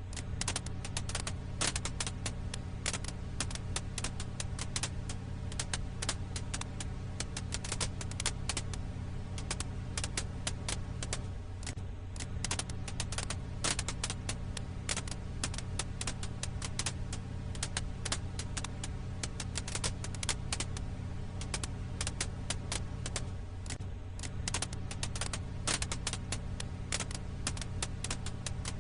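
Firewood crackling in a campfire: dense, irregular pops and snaps over a steady low hum, as a loop that repeats about every twelve seconds.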